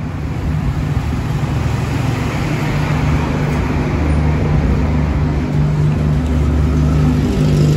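Road traffic with a motor vehicle engine running close by: a steady low hum that grows gradually louder.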